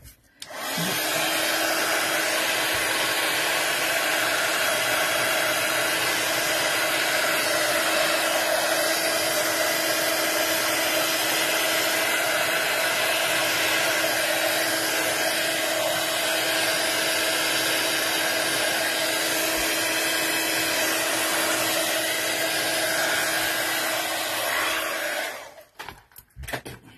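Handheld hot-air dryer blowing on wet watercolour paper to dry the paint: a steady whooshing run with a constant low hum, switched on about half a second in and cut off about two seconds before the end.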